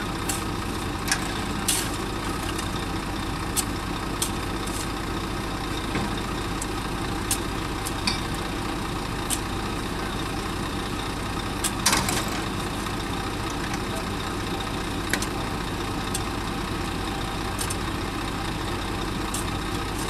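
Heavy diesel machinery, a truck and an excavator, idling steadily, with scattered short clicks and knocks and one louder clank about twelve seconds in.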